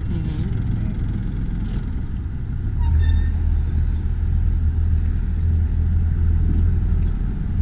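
Boat's outboard motor running under way, a steady low drone that grows louder about three seconds in.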